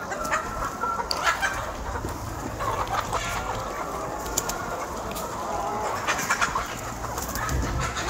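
A large flock of Rhode Island Red and black hens clucking and calling at once, many voices overlapping.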